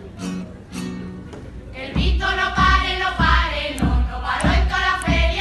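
A carnival singing group strikes up a song about two seconds in: a group of voices singing over a steady bass drum beat.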